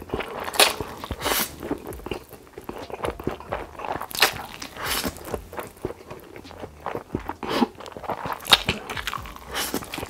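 Close-miked eating sounds: a man slurping in a huge mouthful of black bean noodles and chewing, in irregular wet bursts.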